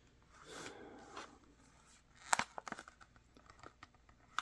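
Plastic packaging handled: a soft rustle, then a run of sharp crackles and clicks about two seconds in.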